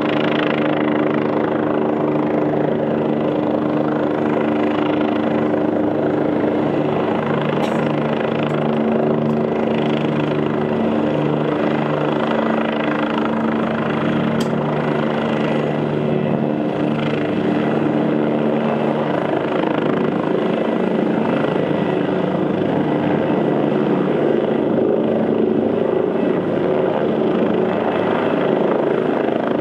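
Helicopter landing: steady rotor beat and engine hum as it descends and hovers over a rooftop helipad. About two-thirds of the way through the hum fades and a broader rushing noise swells as it settles onto the pad.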